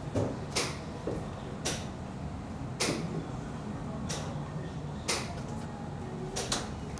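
Sharp, crisp taps, roughly one a second and sometimes two close together, over a low steady hum.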